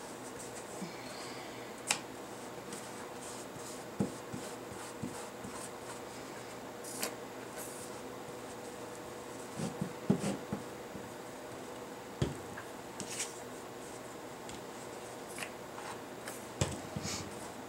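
Scattered light taps and rubbing of a flat brush and paper pieces being worked on a canvas while scrap paper is glued down with Mod Podge, over a faint steady hiss and hum. The loudest cluster of taps comes about halfway through.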